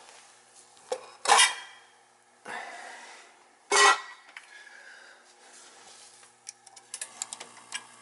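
Metal parts and tools being handled: two loud sharp clanks with a smaller one between them in the first four seconds, then a quick run of light clicks and ticks near the end.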